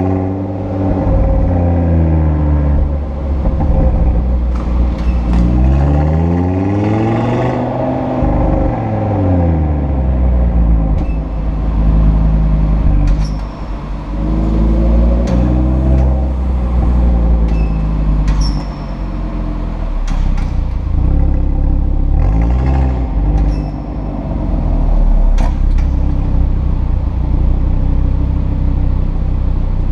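2017 Audi RS3 sedan's five-cylinder turbo engine running through its RS sport exhaust, the revs rising and falling again and again. A few brief high-pitched squeaks come through, the squeak of the exhaust flaps.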